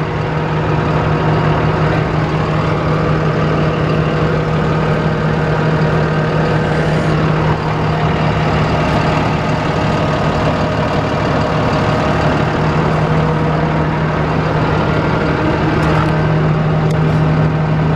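Ford F650 rollback truck engine running at a steady idle, a constant low hum.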